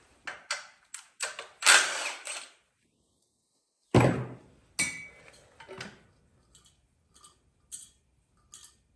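Metal tools and engine parts clanking and clinking as they are handled during an engine teardown. A cluster of knocks early on, one sharp loud knock about four seconds in, then a few light ticks.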